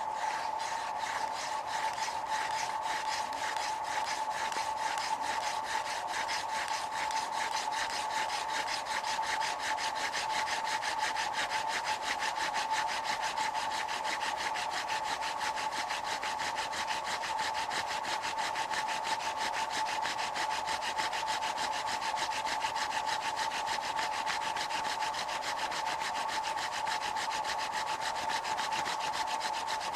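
Mullein spindle spun by hand in a floating hand drill, grinding into a cedar hearth board: a steady, fast, rhythmic wood-on-wood rubbing as the spindle works toward an ember.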